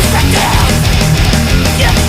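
Loud heavy metal music with distorted guitars and a pounding low end.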